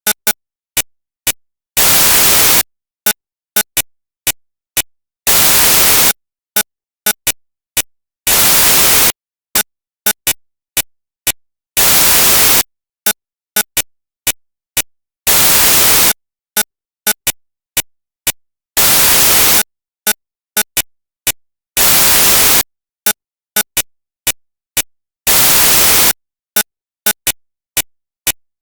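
Electronic static: loud bursts of hiss, each about a second long, repeating roughly every three and a half seconds, with sharp clicks between them.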